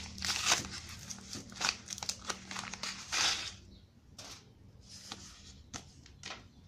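Brown paper packet crinkling and rustling as it is handled and a bundle of tinsel wire is pulled out of it. The crinkling is dense for the first few seconds and turns sparse and fainter after about four seconds.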